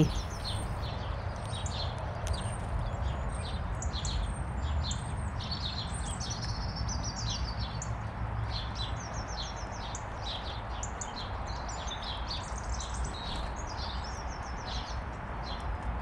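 Small garden birds chirping and singing in quick, high, twittering phrases, over a low steady rumble.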